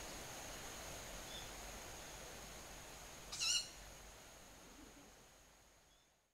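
One short, hoarse, wavering screech about three and a half seconds in, the call taken for that of a fledgling Ural owl, over a steady thin high-pitched whine; everything fades out near the end.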